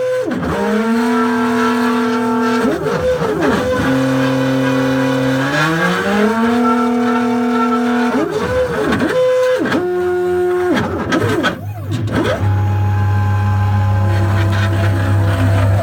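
Stepper motors of a CNC machine driving a pen plotter, whining in steady tones that change pitch with each move, with quick rising-and-falling sweeps as the axes speed up and slow down on short strokes.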